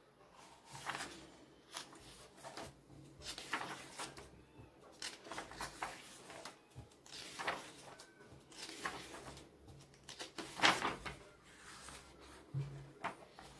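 Pages of a paperback comic book being turned and riffled by hand: paper rustling and flapping in a run of short, irregular swishes, the loudest about three quarters through.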